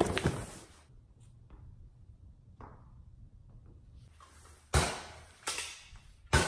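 Toy blaster firing three sharp pops less than a second apart in the second half, after a short burst of scuffling noise at the start.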